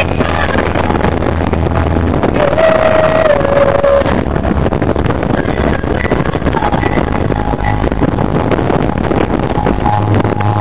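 Loud, steady road and engine noise of a moving car, heard from inside the cabin.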